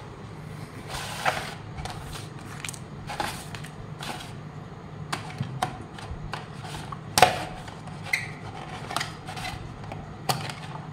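Rigid plastic packaging tray and neckband earphones being handled: a string of light clicks, taps and scrapes of plastic, the sharpest about seven seconds in.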